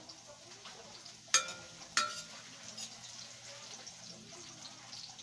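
Garlic sizzling in oil in a glass pot while it is stirred with a ladle. The ladle strikes the pot twice, about a second and a half and two seconds in, each a sharp ringing clink.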